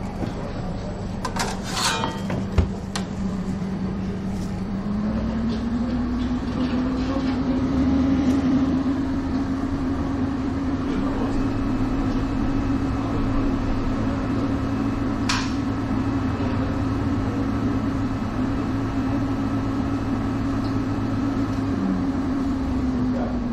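Sandwich toasting oven running: a steady fan hum that steps up in pitch about five seconds in, holds, and drops back just before the end as the cycle finishes. A lower hum joins in the middle, and there are a couple of sharp clicks.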